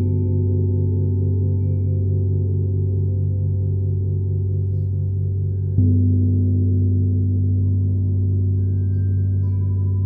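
Paiste 26-inch symphonic gong ringing on with a deep, sustained tone that wavers in a steady fast pulse. A single padded-mallet stroke about six seconds in freshens and swells the ringing.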